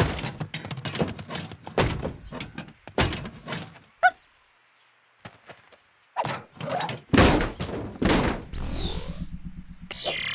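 Cartoon sound effects: a quick run of knocks and thuds, then a short ding about four seconds in. After a pause come loud whooshes over a steady low hum, with a high falling electronic sweep as the flying saucer's beam appears.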